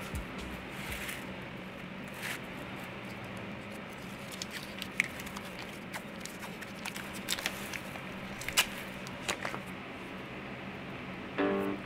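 Scattered small clicks and rustles of hands handling a braided rubber oil-cooler hose and a roll of masking tape, over a steady low hum.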